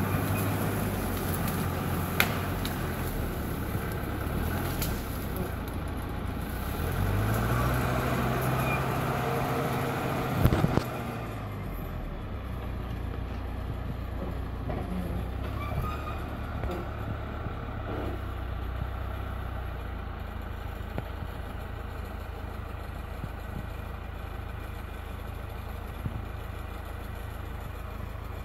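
Crawler dozer's diesel engine running steadily. About seven seconds in it revs up and back down, with a couple of sharp knocks near ten seconds in, then settles to a steady, lower running speed.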